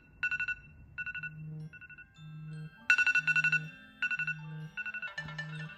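Smartphone alarm tones: groups of about four quick high beeps repeating roughly once a second, growing louder and layered with further tones from about three seconds in. A low buzz pulses on and off beneath them at about the same rate.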